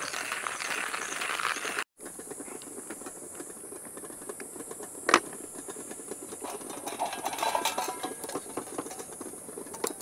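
Hand-cranked coffee grinder crunching beans at the start, then after a brief cut, quieter clicks and rattles of handling, with one sharp click about five seconds in. A steady high hiss runs underneath.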